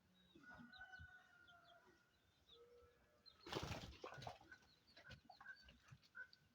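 Faint chickens clucking and calling, with a brief, louder rustling burst about three and a half seconds in.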